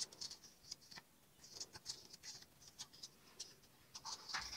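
Faint rustling and light ticks of the thin paper pages of a tiny storybook being turned and handled, with a cardboard toy box being handled near the end.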